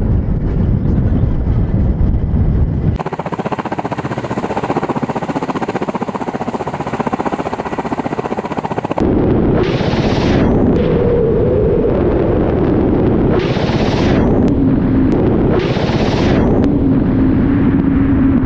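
Ka-52 attack helicopter in flight, a steady rotor and engine drone with wind on the microphone, the sound changing character about three seconds in and again near nine seconds. In the last part, three rocket salvos from the underwing pods fire, each about a second of rushing hiss, roughly three seconds apart.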